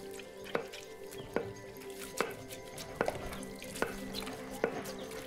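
Wooden pestle pounding in a wooden mortar: six sharp thuds at an even pace, about one every 0.8 seconds, over soft background music with sustained notes.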